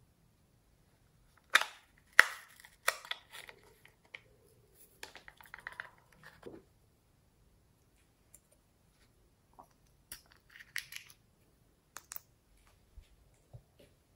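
Sharp clicks and knocks of hard toy-shaped containers being handled and set down, with a short rattling scrape in the middle and a few lighter taps near the end.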